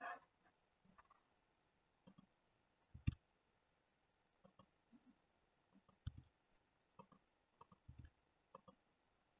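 Faint, scattered clicks of a computer mouse and keyboard, several in quick pairs, with a few duller knocks about three, six and eight seconds in.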